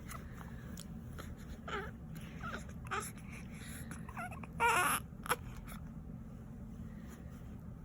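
Newborn baby making short, soft whimpering sounds, with a louder, brief sound about halfway through.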